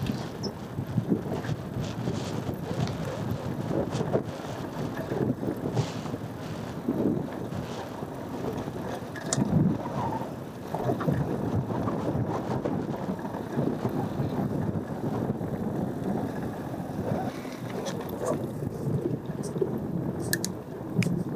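Cube Analog hardtail mountain bike riding a dirt trail: tyres rolling over dirt with irregular knocks and rattles over bumps, and a few sharp clicks near the end. Wind noise on the microphone runs underneath.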